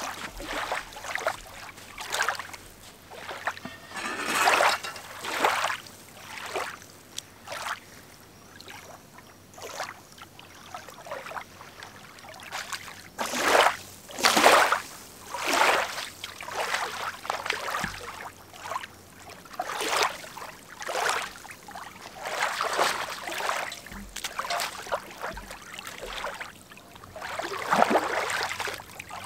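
Shallow lake water splashing and sloshing in irregular bursts, a second or two apart, as a Dutch oven and a cup are dipped, filled and rinsed at the water's edge.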